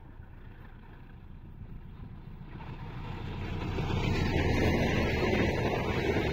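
Diesel-electric locomotive hauling a passenger train approaching at speed and passing close by, its rumble swelling steadily and becoming loud about four seconds in as the locomotive goes by, then the rush of the coaches running past.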